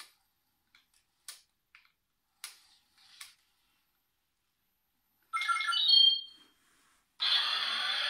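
Top Race self-balancing toy robot playing electronic beeping sound effects through its small speaker: two short bursts in the second half, the first ending in steady high tones. A few faint clicks come before them.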